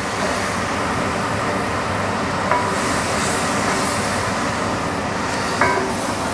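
Wine sizzling with a steady hiss as it deglazes a very hot cast iron pan, cooking off its alcohol, with a couple of light taps from the wooden spoon.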